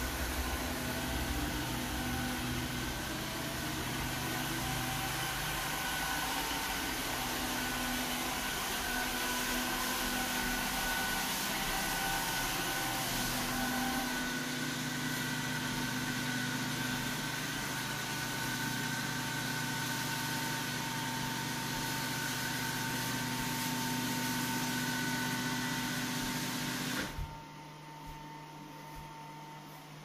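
Roomba s9 robot vacuum running as it drives back to its dock: a steady whir with a faint whine over it, which cuts off sharply about 27 seconds in as the robot docks.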